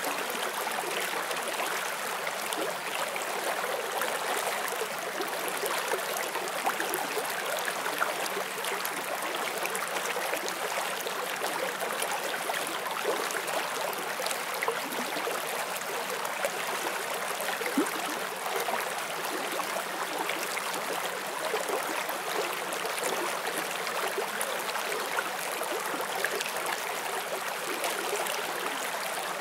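Forest stream flowing: a steady rush of running water with small splashes and gurgles scattered through it.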